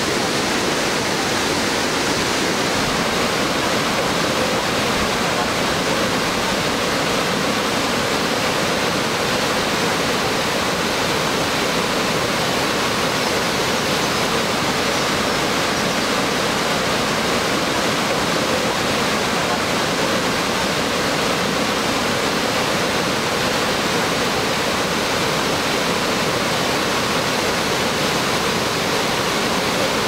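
Torc Waterfall in heavy flow: water cascading down over rocks into a boulder-strewn pool, a steady, unbroken rush of white water.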